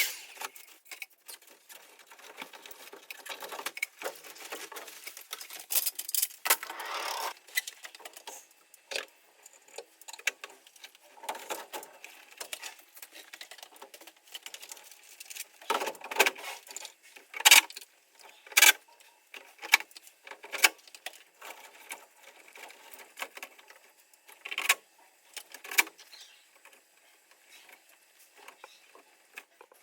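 Rapid, irregular clicks, taps and short knocks of hand work on hard parts, played back at seven times speed, with the sharpest clicks about two thirds of the way through.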